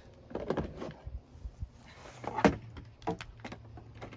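Tools and equipment being handled and set down in a truck's tool compartments: a scatter of short knocks and clacks, the loudest about two and a half seconds in.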